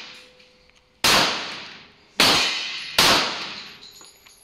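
Three semi-automatic pistol shots about a second apart, each ringing out and decaying.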